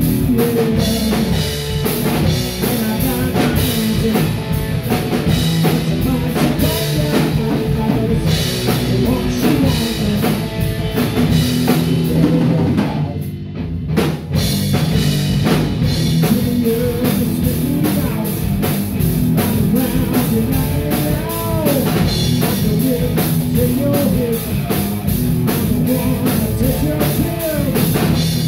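Live hard rock band playing an original song: electric guitar, electric bass and drum kit, with a steady driving beat. About halfway through the cymbals drop out for about a second, then the full band comes back in.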